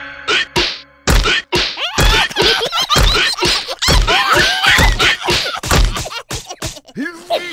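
Cartoon slapstick sound effects: a run of whacks and thuds, roughly one a second, mixed with squeaky cries.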